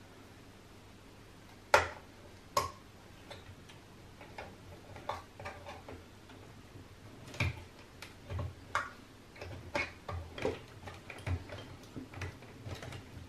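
Irregular clicks and light knocks of a screwdriver working at the plastic clips that hold a Pioneer A-445 amplifier's front panel. Two sharp clicks stand out about two seconds in, followed by a run of smaller clicks and taps.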